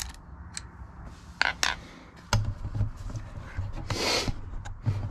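Small metal clicks and scrapes of a wrench working the nuts on a battery's terminal posts as wire terminals are fastened on, followed by low thumps and a brief rustle near the end as things are handled and moved.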